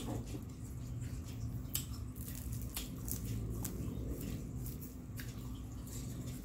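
Close-miked chewing of fried snacks, with many short mouth clicks scattered through it. A faint steady hum runs underneath.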